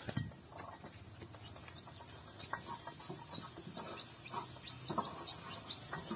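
A chicken pecking food from a plate, its beak tapping and clicking on the plate at an irregular pace, with small birds chirping faintly in the background.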